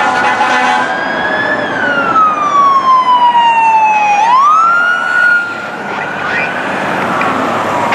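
Electronic wail siren on a sheriff's patrol SUV responding with lights and sirens. Its pitch rises and then falls slowly, climbs quickly about four seconds in, holds high, and starts to fall again near the end.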